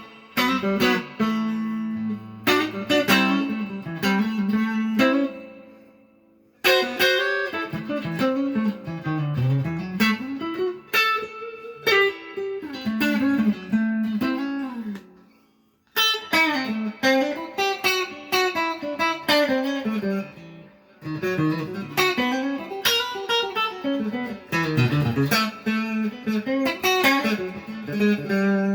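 A 1965 Fender Stratocaster electric guitar played with a clean tone through a Roland Cube 40XL amp. It plays phrases of picked single notes and chords, pausing briefly about six and sixteen seconds in, and ends on a ringing chord.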